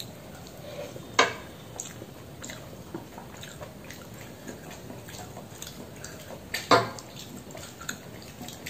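Close-up eating sounds: soft, wet chewing and fingers mixing rice on a steel plate, with small scattered clicks and two sharper clicks, one about a second in and one about two seconds before the end.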